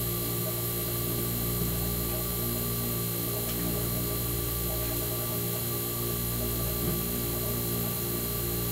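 Tecumseh AJM hermetic refrigeration compressor running with a steady hum.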